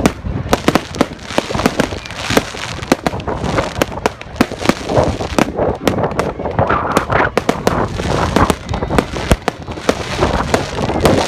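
Fireworks going off: a dense, irregular run of rapid sharp bangs and crackles, several a second, with no pause.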